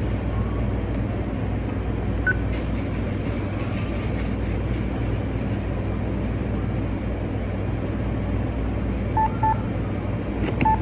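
Steady low rumble of an idling car, with a few short electronic beeps near the end as the card payment goes through.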